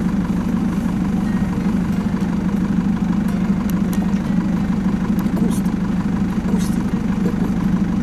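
A vehicle's engine idling with a steady low hum.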